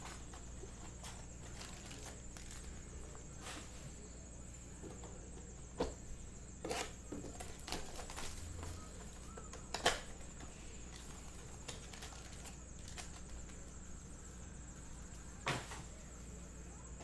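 A few light clicks and rustles of trading-card packs and cards being handled, over a steady low hum and a faint high whine.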